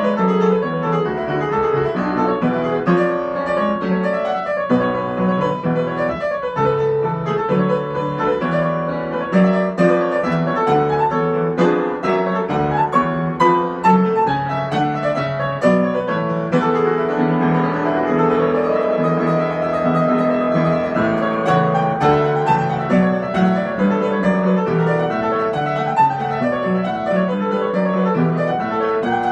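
Upright piano played solo with both hands: a busy, flowing piece with many quick notes over held lower notes, at a steady loudness.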